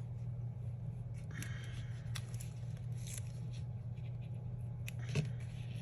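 Paper stickers and sticker sheets being handled on a desk: a short rustle and a few small taps and clicks, over a steady low electrical hum.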